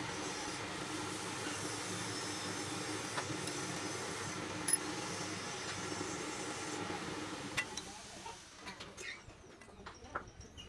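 Steady mechanical hum with hiss, which drops away about eight seconds in, leaving scattered light clicks and taps.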